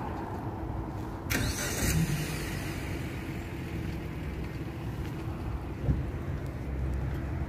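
Steady low rumble of road traffic, with a short burst of hiss about a second in and a soft thump near six seconds.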